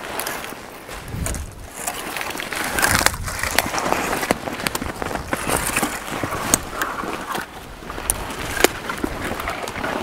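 Rustling and scraping of a felled dry spruce and its dead branches being handled in snow, with many sharp cracks and snaps of brittle twigs.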